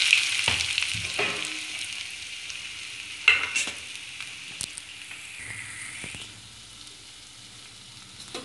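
Sliced onions sizzling in hot ghee in a metal kadai, loudest at first just after they go in and dying down steadily. A few sharp clicks about three and four and a half seconds in.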